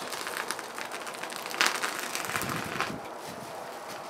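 Bubble wrap being cut with a knife: the plastic crinkles and crackles in a run of small clicks, with a louder crackle about one and a half seconds in.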